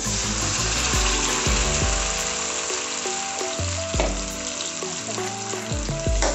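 Ground green masala paste sizzling steadily as it hits hot oil and fried onions in an aluminium kadai, the start of frying the paste for a chicken handi gravy. A ladle starts stirring the paste near the end.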